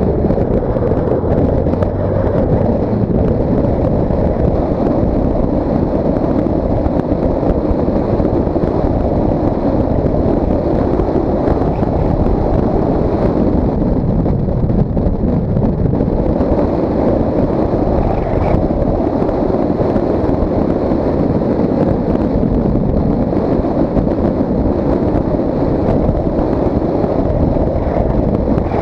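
Steady wind rushing over the microphone of a camera mounted outside a moving car, with the car's driving noise underneath.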